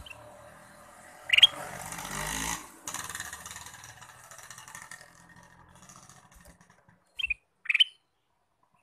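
Ruby-throated bulbul (kutilang emas) giving short, sharp chirps: one about a second in, and two close together near the end. Under them are a sharp click at the very start and, after the first chirp, a stretch of rushing noise with a low hum.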